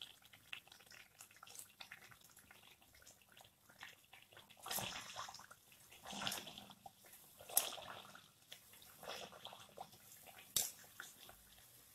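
Hot oil sizzling and crackling around a pua deep-frying, with louder bursts of sizzle every second or so from about five seconds in as a wire spider skimmer presses the fritter down into the oil.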